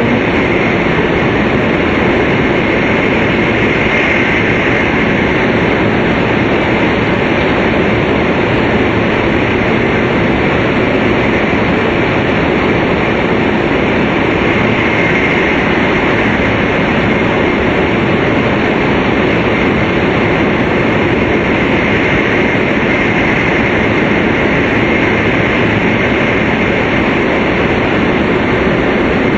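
Tōhoku Shinkansen train running at speed, heard from inside the passenger car: a steady, loud rush of wheel and air noise with a faint high whine.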